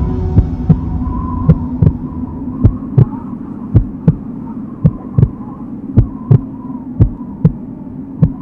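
Heartbeat sound effect: paired low thumps, lub-dub, about once a second, over a steady low hum.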